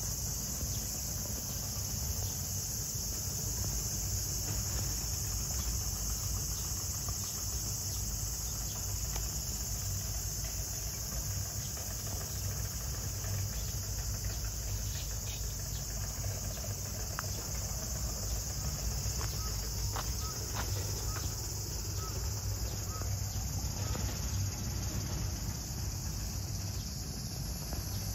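Steady high-pitched insect chorus, with a low rumble beneath it and a few faint clicks in the second half.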